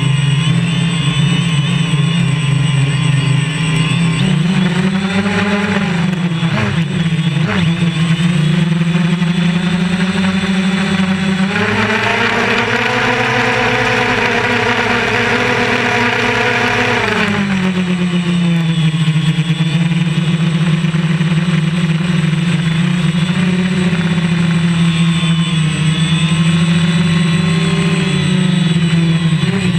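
DJI Phantom quadcopter's electric motors and propellers buzzing, picked up by the GoPro camera mounted on the drone. The pitch dips and rises as the throttle changes, with a louder, higher-pitched stretch of about six seconds in the middle.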